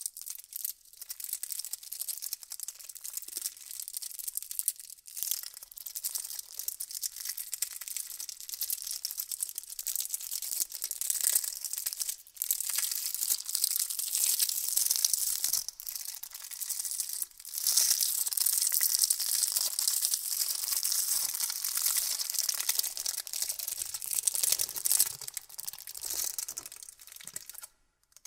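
Candy wrappers crinkled and rustled by hand close to the microphone: a dense run of crisp crackling with brief pauses a few times, stopping just before the end.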